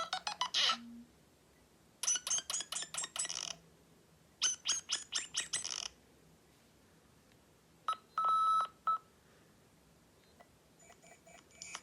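Nothing Phone (1) ringtones from its new Android 13 set, previewed one after another. Each is a short run of rapid, clicky electronic tones, stopped after about a second and a half. One ends just after the start, others play about 2 and 4.5 seconds in, and one with a steady high tone plays about 8 seconds in. The next begins near the end.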